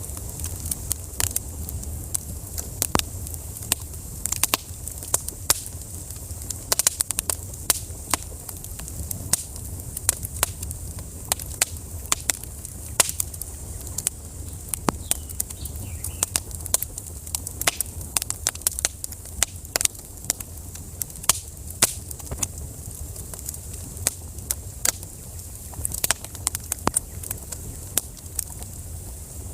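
Wood fire in a fireplace crackling, with many sharp irregular pops and snaps over a steady low rumble of the flames.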